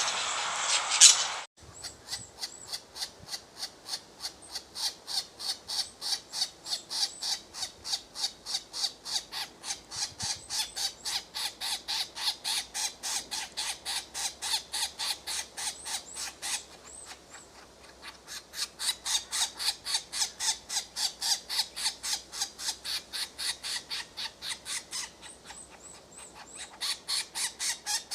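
A bird calling in a fast, even series of short, sharp notes, about three or four a second, with two brief pauses. It opens with a louder, harsh call that cuts off abruptly about a second and a half in.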